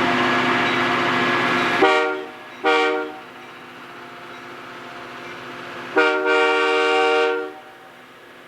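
Diesel locomotive air horn sounding: a short blast about two and a half seconds in and a longer blast about six seconds in. Before that, loud train noise with horn tones cuts off sharply about two seconds in.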